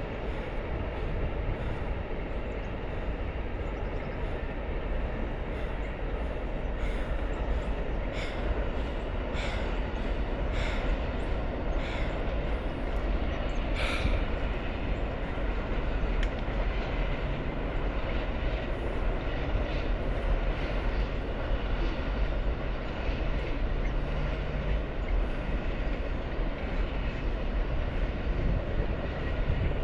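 Amtrak passenger train passing: a steady rumble, with a series of evenly spaced clicks, a little over one a second, through the middle.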